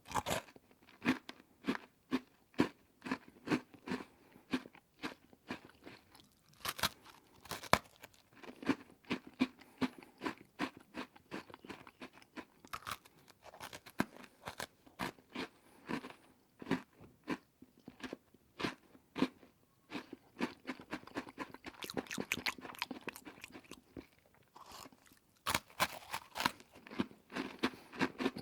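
Close-miked chewing of crunchy food: a continuous run of crisp crunches, several a second, with louder bites near the end.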